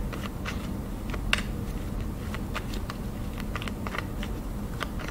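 Tarot cards being shuffled by hand: irregular soft clicks and taps as the cards slide and knock together, with one sharper click about a second in.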